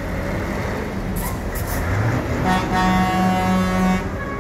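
Heavy diesel trucks running, with a truck horn blowing one long steady note about two and a half seconds in that lasts about a second and a half.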